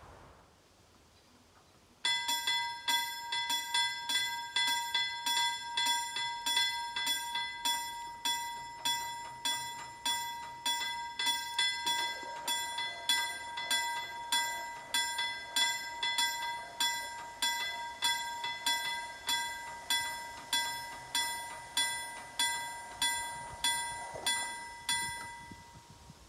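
LME KLD-4315 mechanical level-crossing bell starting about two seconds in and struck in a steady rhythm of a little under two strokes a second, each stroke a bright ringing tone. It cuts off shortly before the end. This is the crossing's warning for an approaching train.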